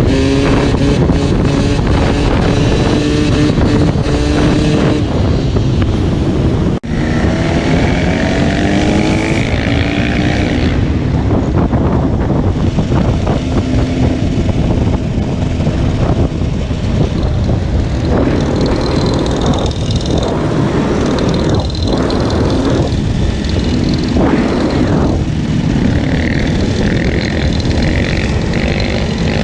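Off-road motorcycle engine revving and accelerating, its pitch climbing again and again as it pulls through the gears, with a brief break about seven seconds in.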